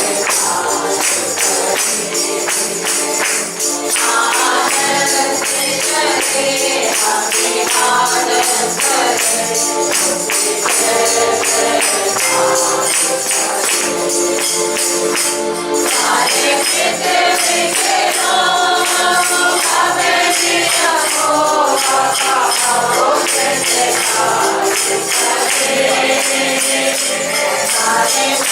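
Congregation singing a Hindi worship song in unison, with a tambourine shaken in a steady, rhythmic jingle.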